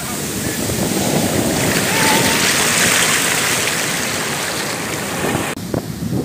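Sea surf washing up the beach, with foaming water rushing over the sand, swelling to its loudest about two to three seconds in. About five and a half seconds in the sound cuts suddenly to breaking waves with wind gusting on the microphone.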